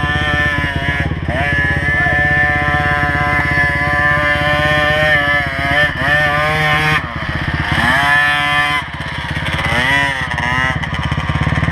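Small dirt bike engines revving up and down under load as the riders climb a dirt hill, with pitch sweeps about six and eight seconds in, over a steady low engine drone.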